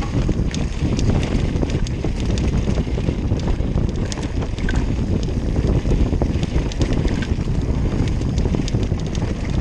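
Enduro mountain bike descending a dirt trail at speed: wind rushing over the microphone and tyre rumble, with frequent sharp clicks and rattles from the bike over bumps.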